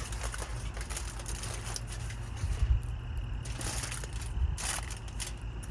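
Aluminium foil being opened out and crinkled in several rustling bursts, the loudest about two and a half seconds in and again around four seconds, over a steady low rumble.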